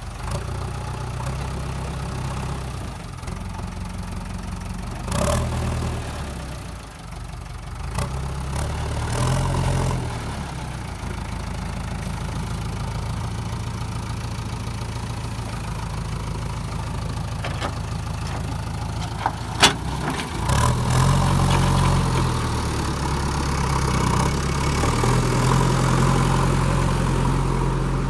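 JCB 3DX backhoe loader's diesel engine running, revving up and settling back several times, with a few sharp metallic knocks, the loudest a little past the middle.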